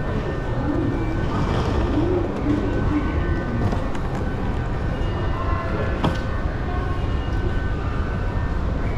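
Train noise at a railway station: a steady low rumble and hum, with one sharp click about six seconds in.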